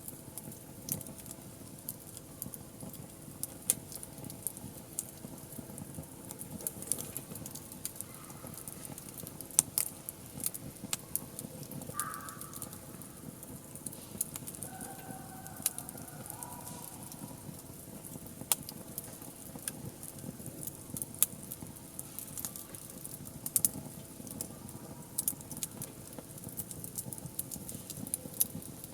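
Wood fire crackling, with frequent irregular sharp pops and snaps over a low steady hiss of burning.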